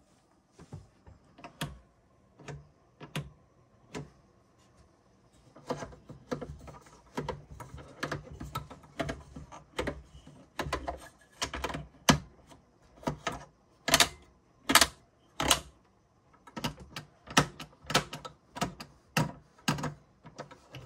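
Lever switches on a Precision Tube Master Series 10-12 vacuum tube tester clicking as they are flipped one after another. A few spaced clicks come first, then a quick, uneven run of clicks from about six seconds in, loudest a little past the middle.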